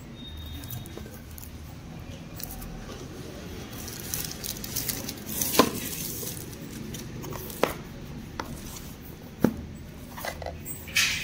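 Packaging being handled: a shrink-wrapped cardboard product box turned over, with three sharp clicks and taps spread out, and a short rustle of plastic wrap near the end.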